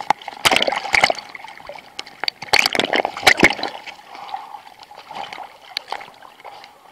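Choppy surface water splashing and lapping around a camera held at the waterline, in irregular splashes that are heaviest in the first half and ease to lighter lapping after about four seconds.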